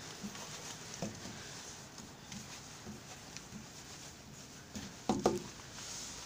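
Felt-tip marker rubbing and squeaking across a smooth wall in short strokes as a tag is written, with a louder cluster of strokes about five seconds in.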